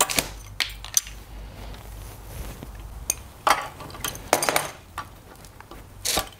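Light metallic clicks and clinks of a small-engine carburetor and its wire linkage rods being handled and unhooked, a handful of sharp separate clicks spread through, the loudest a little past the middle.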